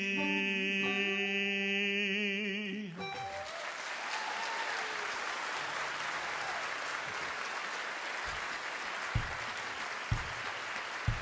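A man's voice holding the song's last sung note over guitar, with a little vibrato before it stops about three seconds in, then audience applause. A few dull thumps sound near the end.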